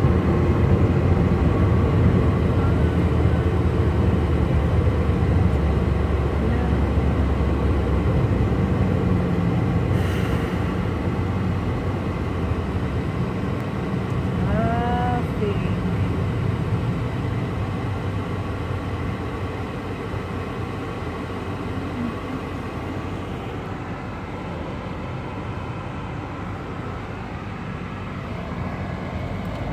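Steady road and engine noise heard inside a moving car's cabin, slowly getting quieter. About fifteen seconds in, a brief falling tone sounds once over the rumble.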